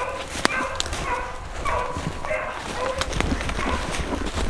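Hunting beagle baying repeatedly, about six drawn-out calls. This is a hound giving tongue while running a rabbit's scent trail. Footsteps crunching and twigs snapping in the brush sound underneath.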